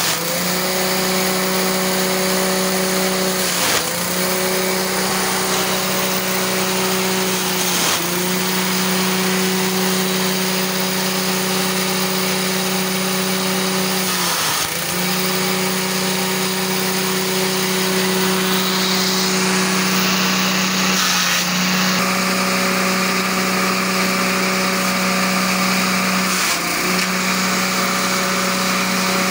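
Grass chopper (chaff cutter) driven by a small petrol engine, running steadily at high speed while it chops long grass stalks. About five times the engine note dips briefly and recovers as the blades take a bundle of grass under load.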